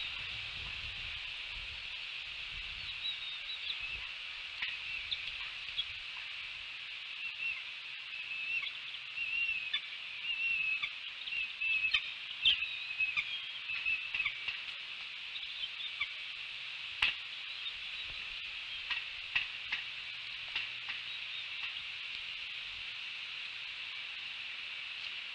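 Bald eaglet chicks peeping in thin, wavering high chirps, the begging calls of young being fed, over a steady high-pitched background chorus. The chirping thins out after about fifteen seconds, and a few sharp clicks follow in the second half.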